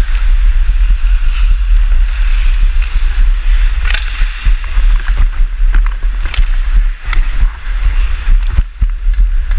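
Ice skates carving and scraping on the rink, with heavy wind rumble on the helmet-mounted camera's microphone, and several sharp clacks of hockey sticks and puck, the loudest about four seconds in as sticks cross in a battle for the puck.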